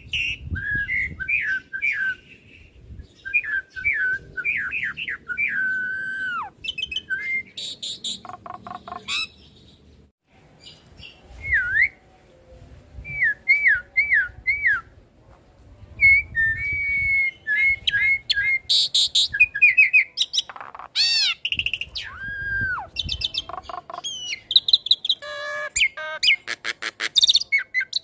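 Hybrid Asian pied starling × Nias hill myna singing a varied string of whistled notes: short rising and falling glides and quickly repeated phrases, broken by bursts of fast rattling clicks.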